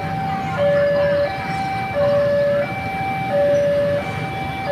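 Railway level-crossing warning alarm: an electronic two-tone signal alternating steadily between a lower and a higher note, each held for about two-thirds of a second, with the higher note louder. It warns road traffic of an approaching train. A low rumble of waiting road traffic runs underneath.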